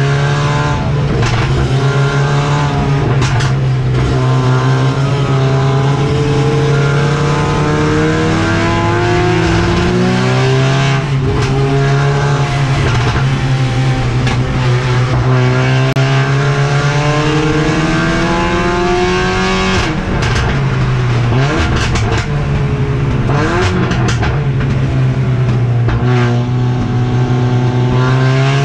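Mercedes-AMG CLA45 race car's turbocharged four-cylinder engine heard from onboard at racing speed. The pitch climbs repeatedly as it revs up through the gears and drops back several times on shifts and braking.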